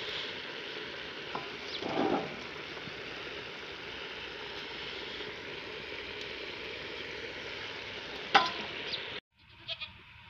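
Stew boiling and sizzling in an aluminium pot over a wood fire, a steady hiss, with a sharp knock near the end. The hiss cuts off abruptly, and a knife clicks faintly through a cucumber.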